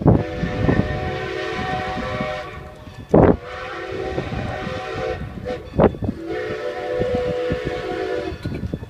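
Steam locomotive whistle blowing three long blasts, several notes sounding together as one chord. Two short, loud bursts of noise fall in the gaps between the blasts.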